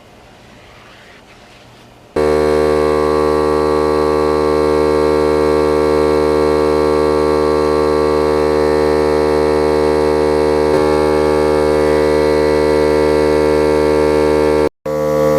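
Small cordless air compressor starts suddenly about two seconds in and runs with a loud, steady buzzing hum while inflating a tractor tire that has come off its bead. The pump is too low-volume to seat the bead.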